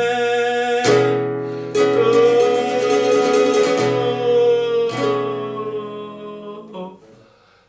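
Music: acoustic guitar chords strummed, the last one left to ring and die away near the end.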